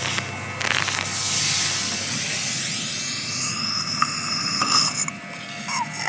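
Suction hiss and bubbling as brake fluid is drawn out of the brake master cylinder reservoir, partly draining it to leave room before the caliper pistons are pushed back. Music plays in the background.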